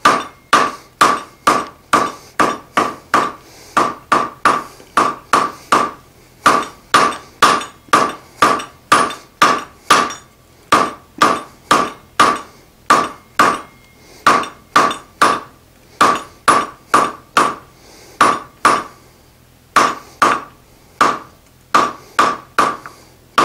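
Hand hammer striking a hot steel bar over the anvil horn, about two to three blows a second, each with a ringing tone from the anvil, in runs broken by a few short pauses: the bar is being drawn out and its lumps and taper worked down.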